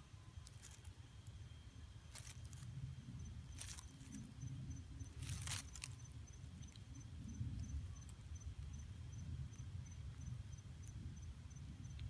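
Faint outdoor ambience: an insect chirping in a rapid, even train of high pulses, over a low wind rumble, with a few brief rustles of dry leaves in the first half.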